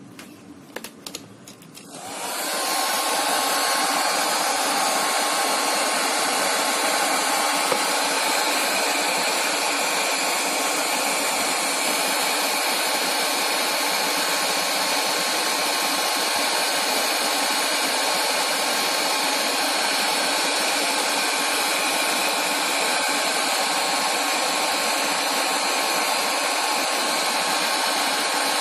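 A few light clicks, then a handheld hair dryer switches on about two seconds in and blows steadily, a rushing airflow with a steady whine from its motor. It is being used in place of a heat gun to warm a phone's LCD for removal.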